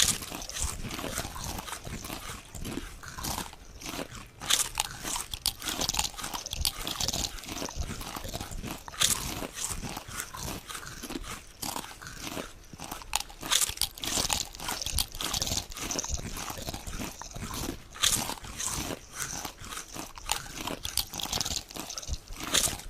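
Potato chips being crunched and chewed: a dense, irregular run of crisp crunches with no pause.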